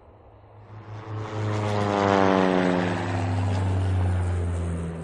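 Animated logo outro sound effect: a low steady hum, joined about a second in by a whoosh whose tones slide slowly downward. It is loudest about two seconds in.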